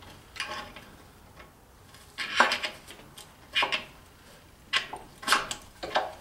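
Slide hammer on a blind-bearing puller: the sliding weight is pulled down against its stop again and again, giving about six sharp metallic clanks a second or so apart, as it tries to draw the front output shaft rear bearing out of an NP208 transfer case's aluminium rear cover. The bearing race is not coming free.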